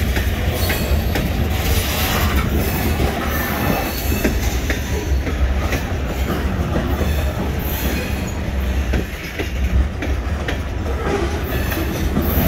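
Loaded grain train's freight cars rolling past, wheels clicking over rail joints above a steady low rumble.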